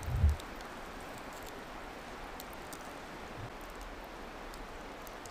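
Campfire of burning logs dying down to embers: a steady hiss with a few faint crackles. A low dull thump comes right at the start.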